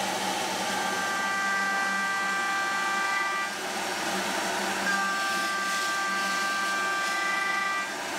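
CNC milling machine's end mill cutting steel: a steady cutting noise with a high whining tone that sets in about a second in, breaks off briefly near the middle and returns. The tool is clamped with a long stick-out, which sets up slight vibration in the cut.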